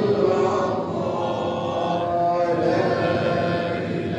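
Unaccompanied male chanting of an Islamic ibtihal, a devotional supplication sung in long, slowly wavering held notes.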